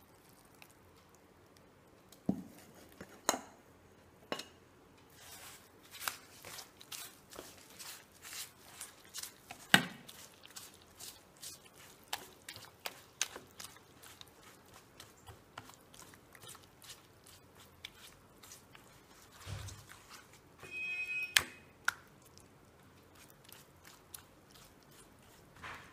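A hand mixing thick, fermented rice-and-coconut appam batter in a steel bowl, making irregular wet squelches and clicks. A brief squeaky rasp comes about three-quarters of the way through.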